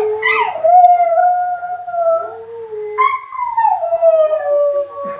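Border terrier howling: two long howls, the first held fairly level, the second starting suddenly about three seconds in and sliding down in pitch.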